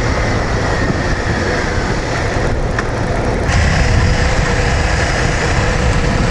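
Honda VTR250 V-twin motorcycle under way, its engine running under a steady rush of riding noise. The sound changes abruptly a little past halfway through.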